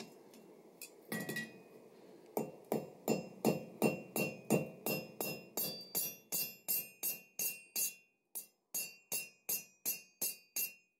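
Ball peen hammer striking a hot 6 mm steel rivet on the anvil, upsetting it to rivet a hook onto the rack: about three even blows a second from about two seconds in, each with a short metallic ring from the anvil. One lighter knock comes about a second in.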